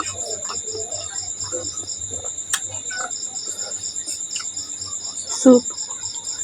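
Chewing and small mouth noises of someone eating momos, over a steady chirping of insects pulsing about four times a second.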